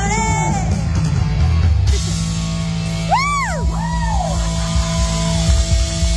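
Live rock band playing: loud electric guitar and bass with held notes, and a high note that swoops up and back down twice around the middle.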